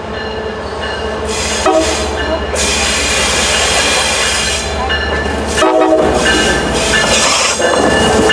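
MBTA diesel passenger locomotive approaching and passing close by, its engine rumble growing louder as it nears. Two short horn sounds come about two seconds and six seconds in, with thin high tones over the rumble.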